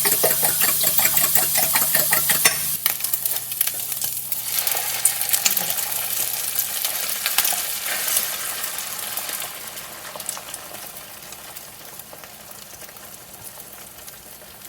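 A fork beating eggs in a bowl, with quick rhythmic clinks for the first few seconds. Then eggs sizzling in a hot frying pan, the sizzle crackling lightly and growing fainter toward the end.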